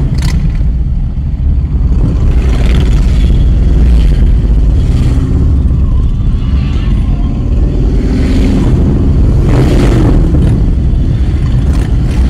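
Motorcycle engines rumbling as a group of touring motorcycles rides past close by, with louder swells as individual bikes go by.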